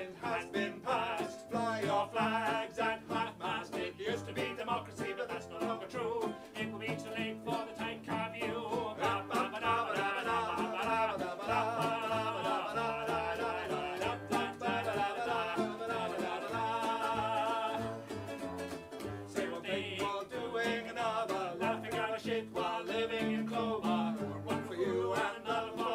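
A man and a woman singing together, accompanied by a plucked cello and a strummed ukulele.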